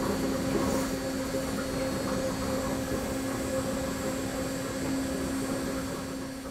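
Steady mechanical hum of a servo-hydraulic multi-axis simulation table running a vibration test on a suspension seat, a steady low tone over machine noise, fading out near the end.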